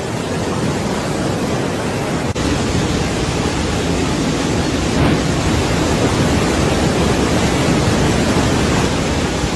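Steady roar of rushing floodwater pouring over a waterfall in a desert wadi, with a brief break about two seconds in.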